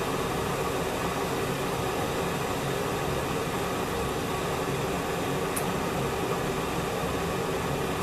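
DEFORT DEK-317-F glass electric kettle heating water, a steady hiss before it reaches the boil.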